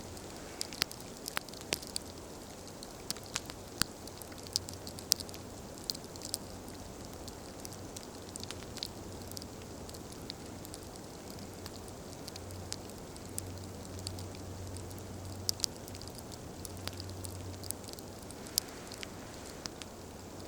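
Campfire crackling, with many irregular sharp pops and snaps over a steady hiss.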